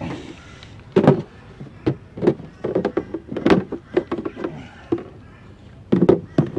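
Irregular knocks and clunks of fishing gear being handled and loaded at a car, a quick run of sharp hits with the loudest about a second in and near the middle.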